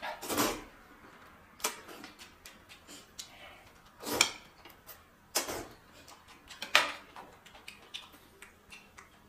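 Close-up eating sounds of noodles being slurped and chewed from a paper cup with chopsticks: about five short, loud slurps, irregularly spaced, with small mouth and utensil clicks in between.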